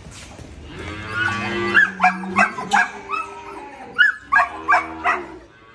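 Cattle mooing: a low moo rising in pitch about a second in, then a string of short, sharp calls and another low moo near the end.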